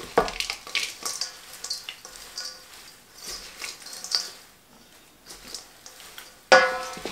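Chopped kale salad being tossed with wooden salad servers in a large stainless steel bowl: the leaves rustle and scrape in irregular strokes. Near the end a server knocks the bowl, which rings briefly.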